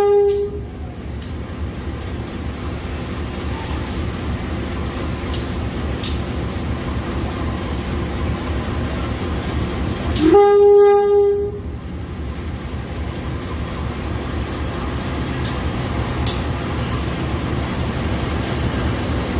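Long passenger train of stainless-steel coaches passing at speed, a steady rumble of wheels on rail. A train horn blast ends just after the start, and a second horn blast sounds about ten seconds in, lasting just over a second.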